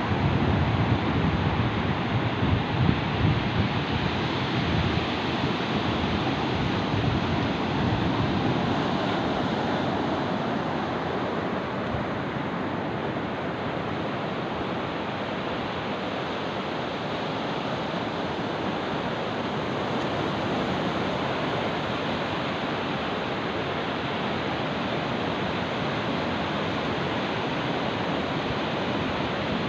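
Small waves breaking and washing up a sandy beach, a steady rushing surf. In the first few seconds wind gusts buffet the microphone, then the surf settles to an even wash.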